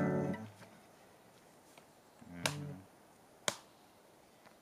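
Two sharp knocks about a second apart, a hatchet striking wood at ground level, after a guitar note fades out at the start.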